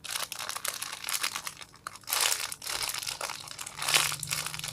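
Plastic packaging crinkling and crackling while a foam squishy toy is handled, with louder bursts about two seconds in and again near the end.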